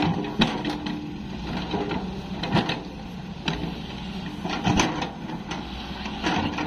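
CAT 320D3 GC tracked excavator's diesel engine running steadily while its bucket digs into soil and stones, with several sharp knocks and crunches as the bucket bites into the earth.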